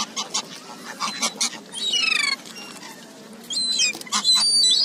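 Birds chirping with quick high calls, a run of falling whistled notes about two seconds in, and a few sharp clicks.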